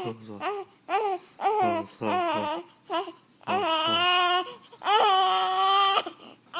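A baby crying: a run of short, wavering cries, then two long wails of about a second each.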